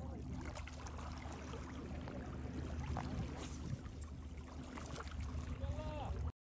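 Seaside ambience: a steady low rumble with faint scattered ticks, and a short faint wavering call near the end. It cuts off abruptly just before the end.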